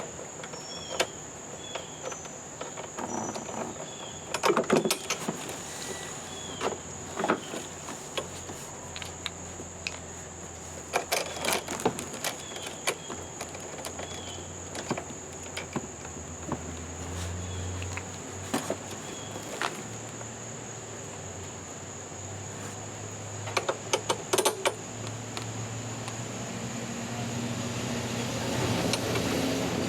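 Scattered clicks, rattles and knocks of parts being handled and pulled off a new walk-behind lawn mower during assembly, over a steady high insect drone with a few short bird chirps.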